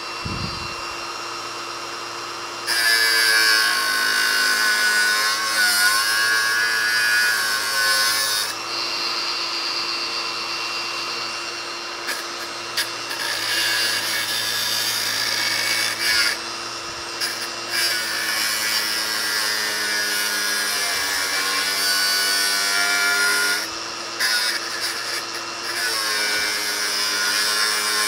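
Hilti AG 4S-A22 22 V brushless cordless angle grinder running. For the first few seconds it spins free, then its abrasive disc bears into welded steel and grinds, the grinding sound swelling and easing several times as the load comes and goes.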